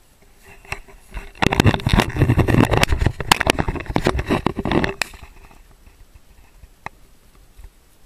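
Dry grass and brush rustling and scraping against a body-worn camera as the wearer pushes through cover: a dense crackling run that starts about a second and a half in and stops after about three and a half seconds.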